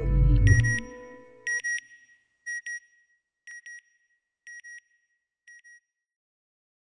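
Closing logo sting: the music ends on a low boom, then short electronic beeps come in quick pairs about once a second, six pairs, each fainter than the last.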